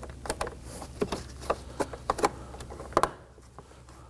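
Plastic door trim panel being pressed into the door, a run of short sharp clicks and taps as its tabs seat, dying away about three seconds in.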